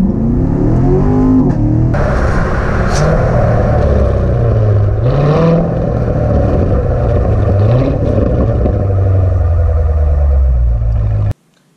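2017 Corvette Grand Sport's 6.2-litre V8 exhaust running loud, revving with its pitch rising and falling several times, then cutting off suddenly near the end.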